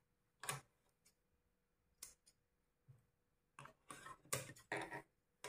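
Large tailor's shears snipping sewing thread at the machine, with soft handling of cotton fabric. A few scattered rustles and clicks come first, then a quick cluster of snips and rustles in the last two seconds.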